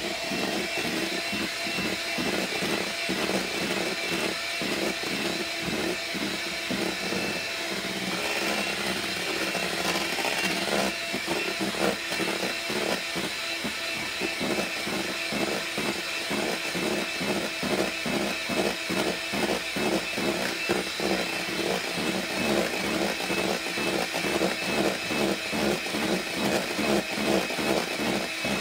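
Electric hand mixer running steadily at speed, its beaters whipping instant pudding mix with milk in a stainless steel bowl; a steady motor whine with a fast pulsing rattle that sets in about a third of the way through.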